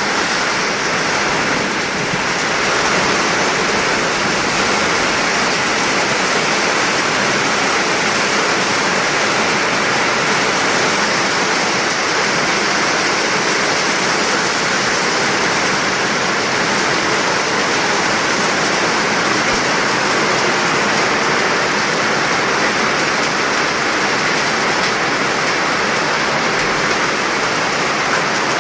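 Rain falling steadily, a dense even hiss that holds at the same level throughout.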